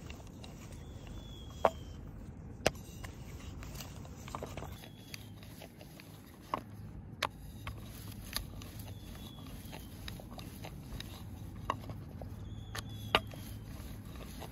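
A long wooden rolling pin rolling out dough on a wooden board, a steady low rumble, with sharp knocks of the pin against the board several times, loudest about one and a half seconds in, again a second later, and near the end.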